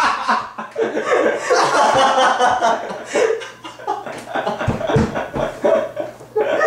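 Men laughing in stifled chuckles and snickers, breaking up mid-take.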